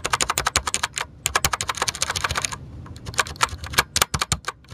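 Fast typing on a Logitech G710+ mechanical keyboard with Cherry MX Brown switches and noise-dampening rings under the keys: a rapid patter of keystrokes, very quiet, with a short pause a little past halfway.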